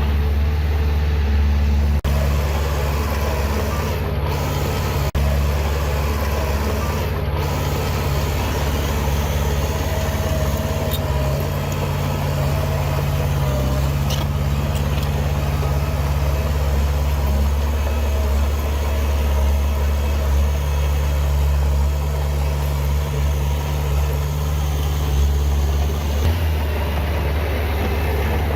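Heavy diesel engine of an earthmoving machine running steadily, a low, even drone.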